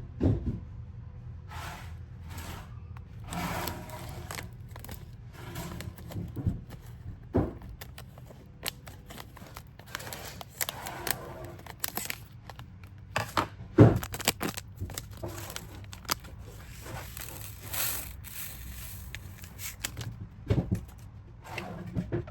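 Hands handling containers and packaging while mixing a citric acid solution: scraping and crinkling with scattered clicks and knocks, and one sharp knock about halfway through the loudest.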